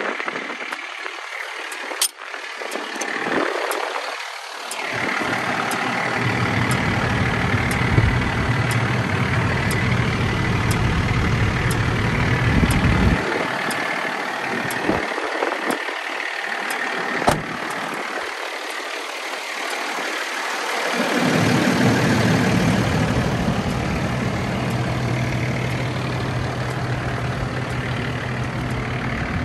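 A 6.7L Cummins diesel in a Freightliner M2 truck idling steadily. Two sharp clicks come through it, one about two seconds in and one a little past the middle.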